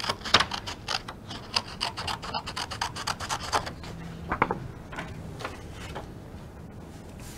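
Scissors snipping through black construction paper, a rapid run of snips through the first three and a half seconds, then lighter paper sounds as the cut strip is handled and laid down.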